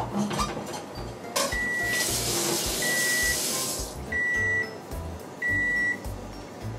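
Gas range's built-in fish grill beeping four times, about 1.3 s apart, signalling that the mackerel is done. A loud hiss runs for a couple of seconds under the first two beeps.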